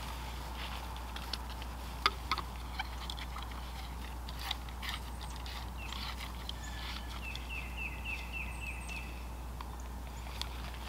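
Scattered clicks and knocks as a garden hose and its fittings are handled, the sharpest about two seconds in. Later a bird calls a quick run of short chirps in the background.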